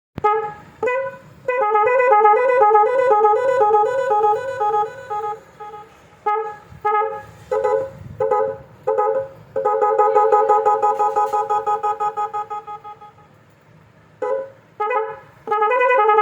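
Electronic multi-tone vehicle horn sounding a fast two-note warble, given as short honks and longer warbling blasts; one long blast pulses and fades away before the short honks start again.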